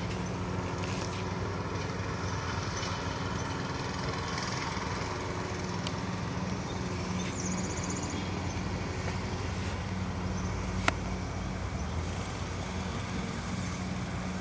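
A motor vehicle's engine running at a steady low hum, under a continuous rushing noise. There is one sharp click about eleven seconds in.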